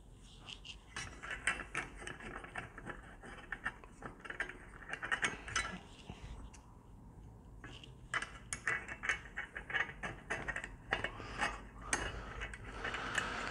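Rapid light metallic clicking and rattling of small steel parts as the pedal box's brake balance bar and clevis are handled and fitted by hand, in two bursts with a pause of about two seconds between them.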